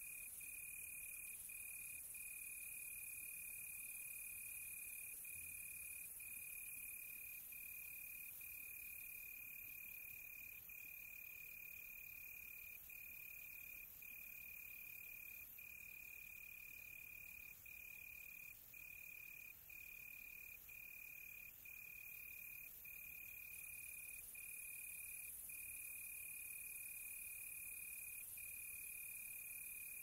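A cricket trilling at one steady high pitch, broken by short gaps every second or two.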